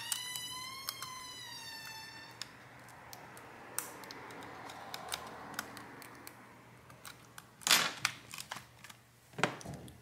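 Light plastic clicks and taps of fingers seating a flat ribbon cable into its connector on a netbook's mainboard. A high whistle-like tone with overtones wavers slightly and stops after about two seconds, and two brief louder rushes of noise come near the end.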